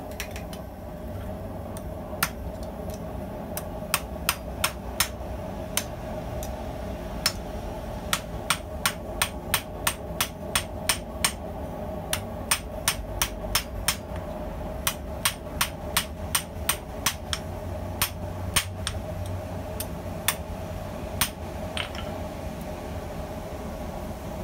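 Hand hammer striking a red-hot steel razor blank on a small convex-faced stump anvil, drawing down the edge: sharp ringing blows in quick runs of a few a second with short pauses between. A steady hum runs underneath.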